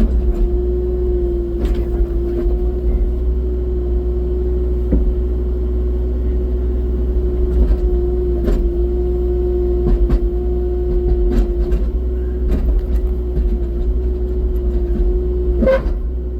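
Rubber-tracked excavator's engine running steadily under load, with a constant whine over the deep rumble. Scattered short knocks and clanks from the bucket working at a large buried rock.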